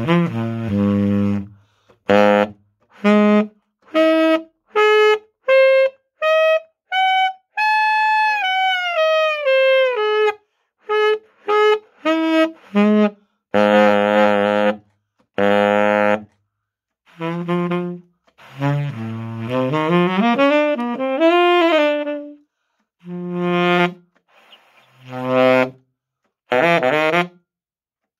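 Black polycarbonate Vibrato tenor saxophone, set up with a Berglarsen 130/2 SMS mouthpiece and a Lavoz medium reed, played in short phrases with pauses between them. Detached notes climb step by step, a held high note bends down in pitch, then come low notes and a run that slides up and down.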